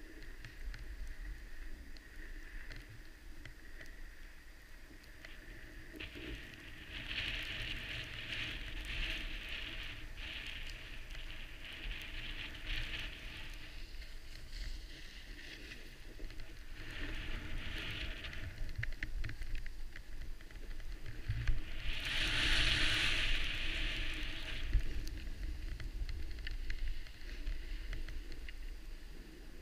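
Skis sliding and turning on snow: a hissing scrape that comes and goes in swells and is loudest about two thirds of the way through. Under it runs a low rumble of wind on the microphone.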